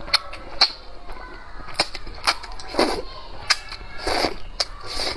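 A person slurping sweet potato glass noodles from a bowl of soup: a run of short, sharp, wet sucking and lip-smacking sounds, with two longer slurps, one near the middle and one about four seconds in.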